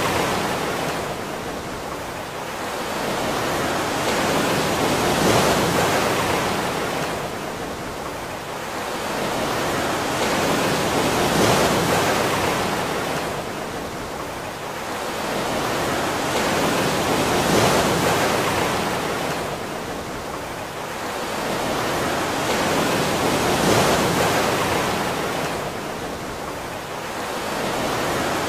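Rushing water: a steady hiss that swells and fades in slow, even surges about every six seconds.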